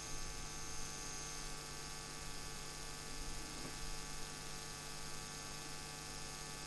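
Steady electrical mains hum, a stack of unchanging tones over a faint hiss.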